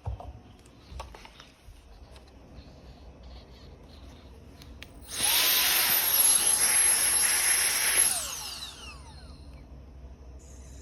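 High-speed turbo fan motor switched on about halfway in, with a high whine over a rush of air. It runs steadily for about three seconds, then is switched off and winds down, its whine falling in pitch.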